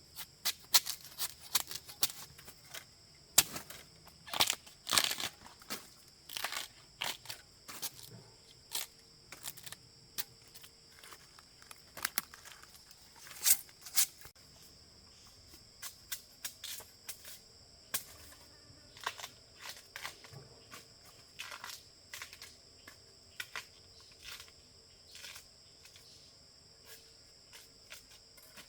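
A run of irregular sharp snaps and knocks, loudest and most frequent in the first half, over a steady high-pitched insect drone.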